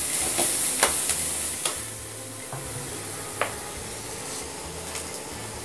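Sliced onions with curry leaves sizzling in hot oil in a metal kadai, with a slotted metal spatula scraping and clicking against the pan during the first two seconds; after that a steady sizzle with one more tap.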